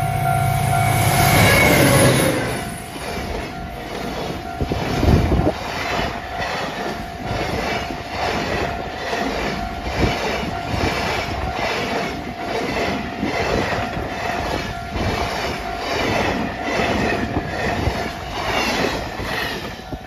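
JR Freight DF200 diesel-electric locomotive passes close, its engine loudest about two seconds in. A long string of loaded container wagons then rolls by, wheels clacking over the rail joints about twice a second. A steady tone from the level-crossing alarm sounds throughout.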